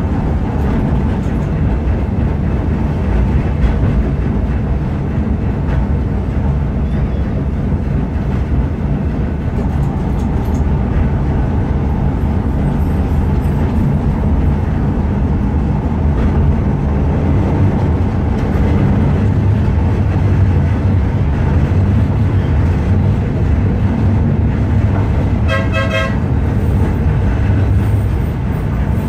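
Blackpool Balloon double-deck tram 700 running along its track, a steady low rumble of motors and wheels on rails heard from inside the front of the car. About 26 seconds in, a short horn note sounds.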